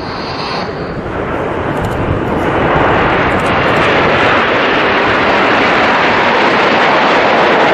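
Formation of Aermacchi MB-339 jet trainers flying overhead: a steady rush of turbojet engine noise that builds over the first two or three seconds and then holds.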